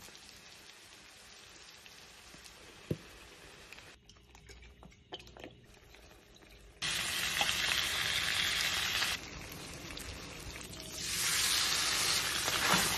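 Sauce frying in a hot skillet. A faint sizzle at first, then loud sizzling starts suddenly about seven seconds in as soy sauce hits the pan. It eases off and swells again near the end as battered fried lobster pieces are tipped in.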